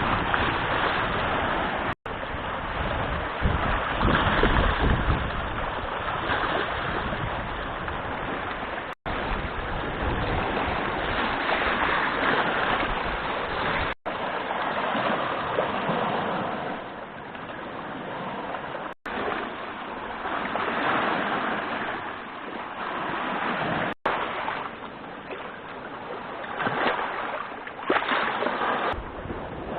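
Strong wind blowing across the microphone over a wind-whipped lake, with waves washing. The sound stops dead for an instant about every five seconds where short clips are joined.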